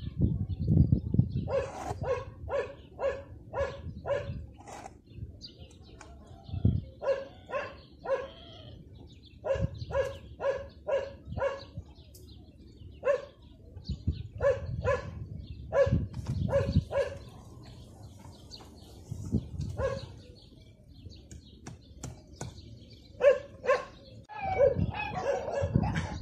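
A dog barking in runs of short barks, about two a second, with pauses between the runs. Low thumps and rumble sit underneath.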